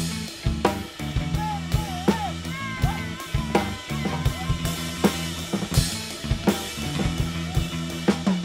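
Rock band music: drum kit and bass keeping a steady beat, with a lead melody that bends and wavers in pitch in the first few seconds.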